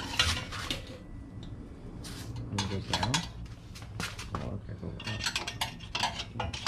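Metal hand tools and engine hardware clinking and clanking irregularly: short, light metallic knocks.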